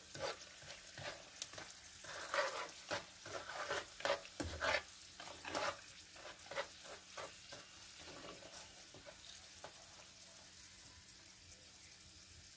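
A metal spatula scrapes and stirs through sweet potato slices frying in a wok of hot oil, with sugar going in to caramelise and coat them. Repeated scraping strokes sound over the sizzle and stop about eight seconds in, leaving a quieter steady sizzle.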